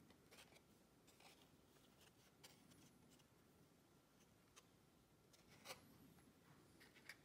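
Near silence, broken by a few faint, scattered crinkles and ticks as a small cut piece of printed packaging is handled between the fingers.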